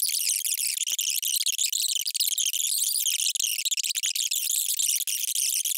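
Debate speech played back at an extreme speed-up, pitched up into a dense, high-pitched chatter with no words to be made out.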